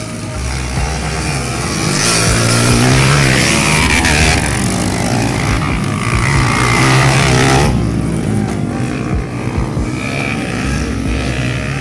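Motocross dirt bike engines revving hard as several bikes pass, rising and falling in pitch, loudest from about two seconds in until near eight seconds, then dropping back, with wind on the microphone.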